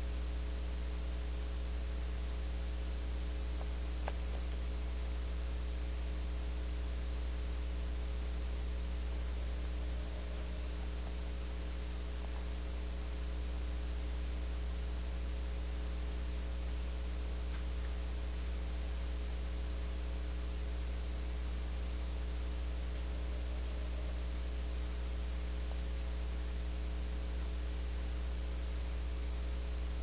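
Steady electrical mains hum in the nest-box camera's audio, a low hum with several fainter steady tones above it over a faint hiss. A single faint click about four seconds in.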